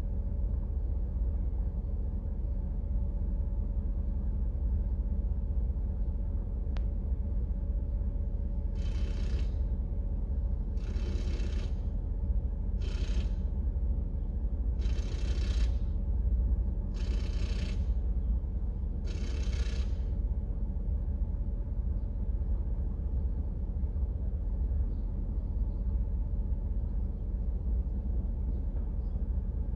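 A vehicle engine idles with a steady low rumble throughout. From about a third of the way in, six short whirring bursts come about two seconds apart, typical of a cordless impact wrench spinning the lug nuts off a wheel during a flat-tire change.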